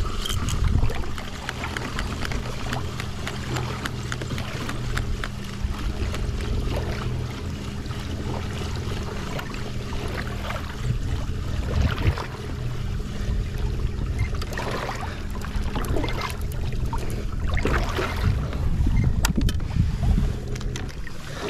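Ocean water sloshing and splashing against a kayak's hull, with wind buffeting the microphone and a steady low hum that stops near the end.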